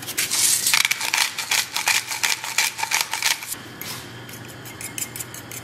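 Small whisk beating eggs and milk in a ceramic bowl: rapid clicking and scraping against the bowl, loudest for the first three seconds or so, then softer.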